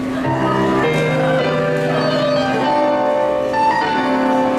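Yosakoi dance music playing, with long held chords that change every second or so.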